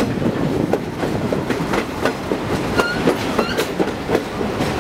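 Napa Valley Wine Train passenger cars rolling along the track: wheels clicking and the cars rattling with irregular knocks, with brief high squeaks now and then.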